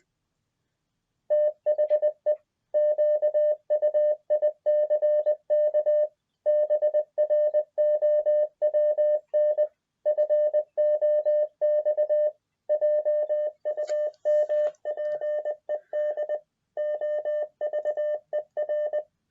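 Morse code beeps from an Echo Dot's speaker: a single steady mid-pitched tone keyed on and off in quick dots and dashes, with short gaps between words, sending the sentence 'the quick brown fox jumped over the lazy dog's back'. It starts about a second in.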